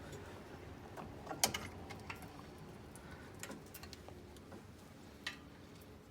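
A few light metallic clicks and taps as greased pad retaining pins are pushed back through a brake caliper and pads; the sharpest click comes about a second and a half in.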